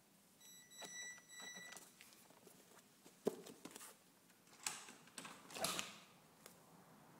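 Faint high-pitched electric whine with a stack of overtones for about a second and a half near the start, from the Traxxas Stampede XL-5 RC truck's motor and speed control at low throttle. Then scattered knocks and rustles, the loudest a sharp knock a little over three seconds in, as the truck and its onboard phone are jostled.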